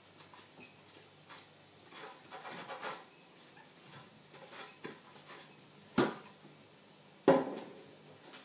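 Kitchen crockery and utensils being handled on a worktop: light clicks and clatters, then two sharp knocks about six and seven seconds in, the second ringing briefly.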